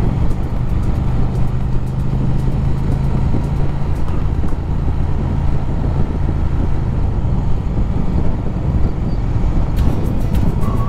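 Triumph Speed Twin's parallel-twin engine running at a steady cruise under heavy wind rush.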